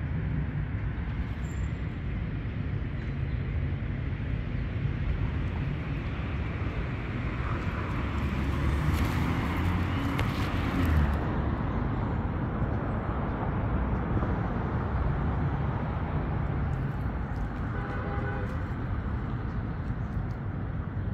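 Street traffic with a steady low rumble. A vehicle passes louder about halfway through, and a short pitched tone sounds briefly near the end.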